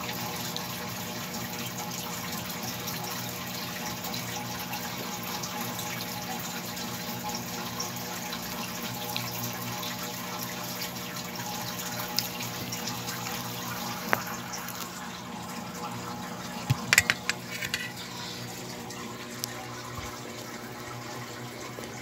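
Steady rushing background noise with a low hum, broken by a few sharp clicks and a quick cluster of them about 17 seconds in; the hum stops near the end.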